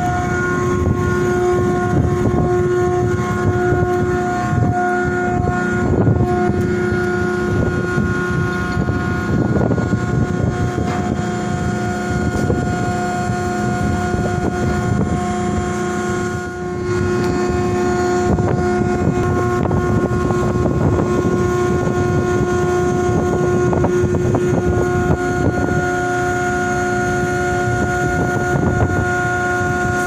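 A vessel's engine machinery running steadily, a loud drone with a steady whine held on one pitch, while strong wind buffets the microphone.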